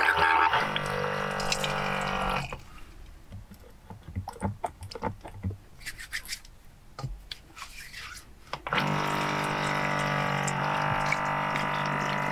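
Small rechargeable electric water pump running and pouring water from its spout into a stainless steel sink. It stops after about two and a half seconds, leaving soapy hands rubbing together with small splashes and clicks. The pump starts again about three quarters of the way through, with water running over the hands as they are rinsed.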